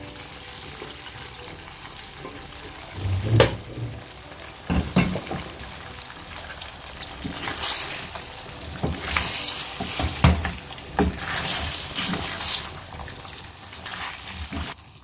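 Ghee-rich masala sizzling in a steel pan as boiled mutton pieces are stirred into it with a wooden spatula: a steady sizzle with a few knocks a few seconds in, then a run of irregular scraping stirring strokes in the second half. The masala has cooked down thick, with the ghee separated out.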